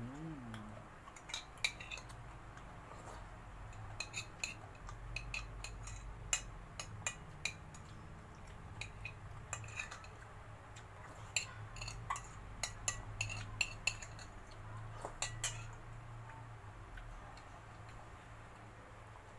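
Light, irregular clinks and taps on a clear glass bowl as food is picked and scraped out of it while eating, a few close together in places, stopping a few seconds before the end.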